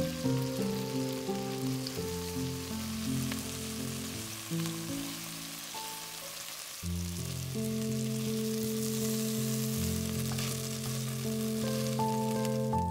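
Beef cubes sizzling steadily as they sear in hot oil in a Dutch oven, over background music with sustained, slowly changing chords.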